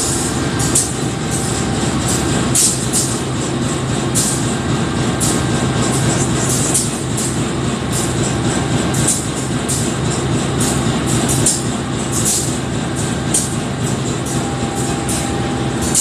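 CC 203 diesel-electric locomotive idling at standstill, a steady low engine drone with frequent short hisses over it.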